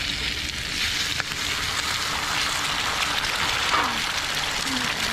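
Beaten egg sizzling in a hot frying pan: a steady frying hiss that swells as the egg is poured in and keeps going as it cooks.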